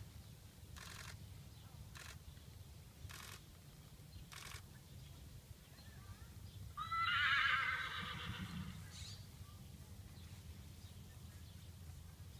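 A horse whinnying once, a single wavering call of about a second and a half that begins about seven seconds in. Earlier, a few short soft beats come about once a second.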